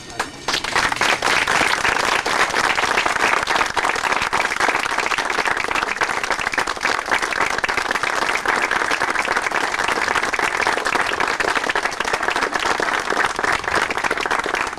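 A crowd applauding, a dense, even clapping that starts abruptly about half a second in.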